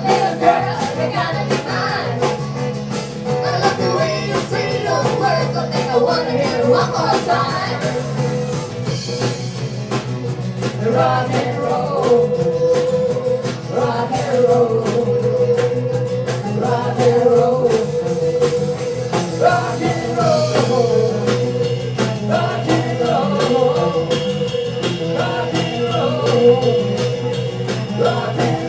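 Live band song: acoustic guitars strummed while several singers sing together into microphones.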